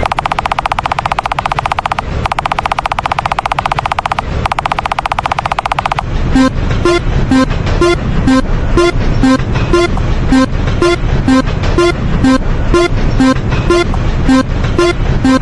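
Railroad crossing warning sounds. For about six seconds there is a very fast, continuous rattling ring. Then comes a steady two-tone clanging, about two strokes a second, over a low rumble.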